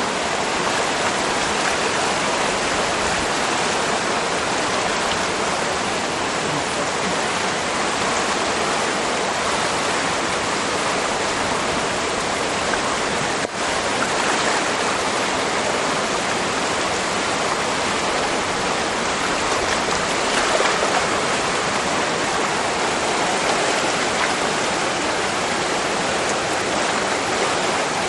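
Rushing whitewater of a river rapid, a steady loud hiss of water.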